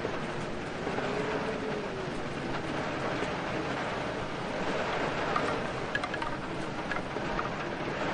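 Steady rain with wind, as a continuous hiss, with a faint tone that now and then rises and falls.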